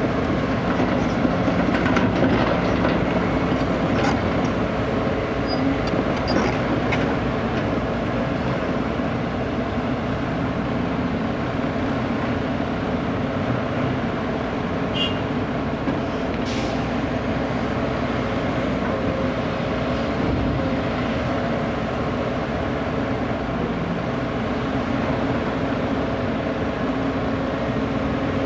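Diesel engines of a Sumitomo SH210 hydraulic excavator and a ten-wheel dump truck running steadily together while the excavator's bucket pushes on the truck's raised dump bed.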